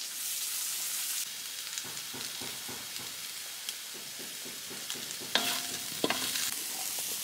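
Diced eggplant sizzling in hot oil in a wok while a wooden spatula stirs and scrapes it. The sizzle is loudest in the first second, and a couple of sharp knocks come about five and six seconds in.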